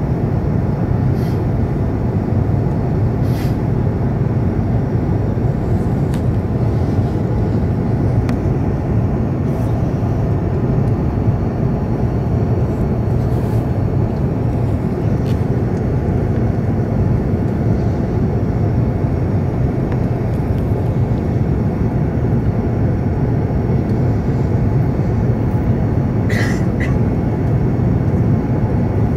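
Steady cabin noise of an Airbus A380 in flight on its approach descent, heard from the upper deck: an even low rumble of engines and airflow. A few faint clicks sound over it.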